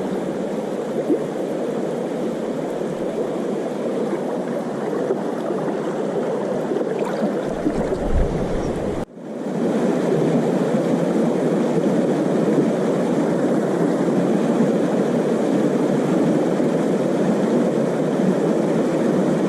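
Shallow river water rushing steadily over stones. About nine seconds in, the sound briefly drops out, then returns slightly louder.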